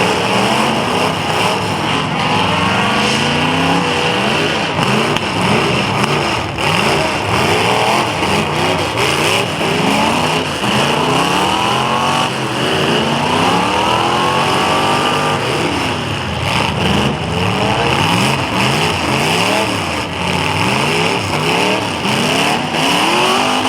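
Several demolition derby car engines revving hard and dropping back, over and over, their rising and falling pitches overlapping.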